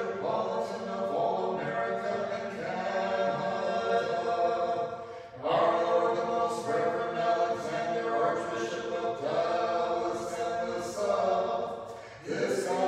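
Orthodox church choir singing a cappella in parts, chanting sustained phrases of a vespers hymn, with short breaths between phrases about five seconds in and again near the end.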